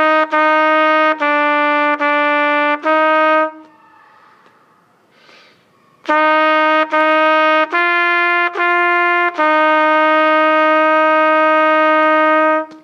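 Solo trumpet playing a beginner exercise. Four short notes (F, F, E, E) and a held F, then after a pause of about two and a half seconds, F, F, G, G and a long F held for about three seconds, in a clear, steady tone.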